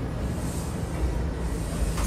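New York City subway train running, a steady low rumble with a high hiss that swells about half a second in and fades.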